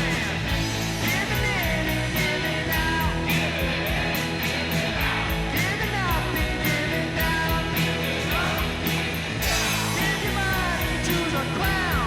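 Rock music with a singing voice, guitar and a steady drum beat.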